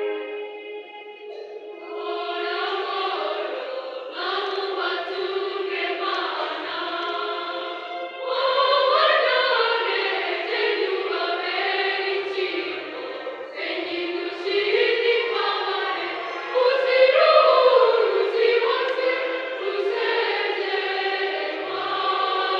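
Mixed choir of adults and children singing a Kinyarwanda hymn in parts, softer for the first two seconds, then swelling louder about eight seconds in and again around seventeen seconds.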